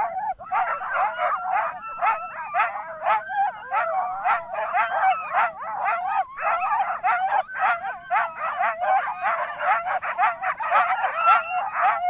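Dog yapping and yelping in a dense, unbroken run of short, high-pitched calls, about three a second.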